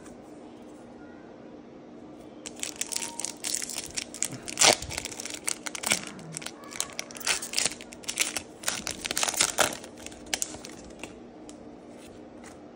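A foil Pokémon booster pack crinkling and tearing open in the hands: a dense run of sharp rustles lasting about seven seconds, starting a couple of seconds in and stopping near the end.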